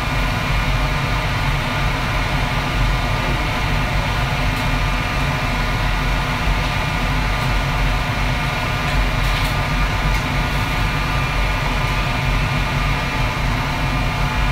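Steady loud roar and hum of a commercial kitchen's wok station, the gas wok burner and the extractor hood fan running continuously. A few faint clicks come around the middle.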